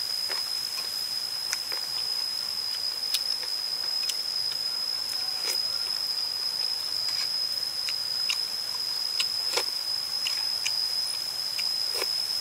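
A steady, high-pitched insect drone from the forest, with scattered soft clicks and smacks of eating close by: chewing on chicken and a spoon against the mouth.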